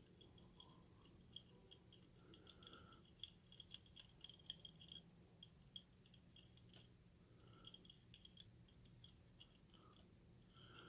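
Faint, irregular metallic clicks and scratches of a pick and tension tool working the levers inside a five-lever lever lock.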